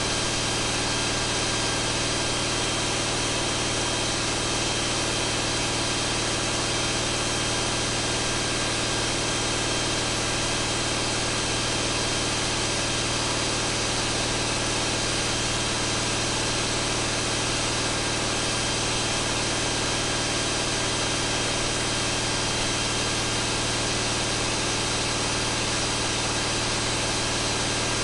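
John Deere 8.1-litre marine inline-six turbodiesel running steadily at full throttle, held near 2,300 rpm under full dynamometer load (about 330 hp).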